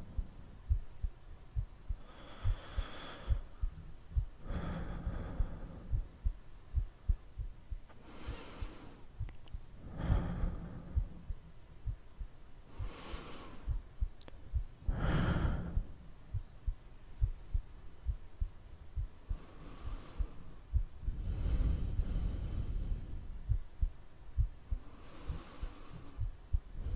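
Soundtrack of slow, heavy breathing: about nine breaths, each swelling up and fading, two to three seconds apart, over a pulse of short low thuds like a heartbeat.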